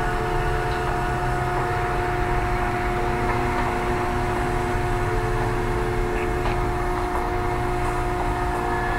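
Steady mechanical hum with a constant whine in it, like a running motor or engine, unchanging in level throughout.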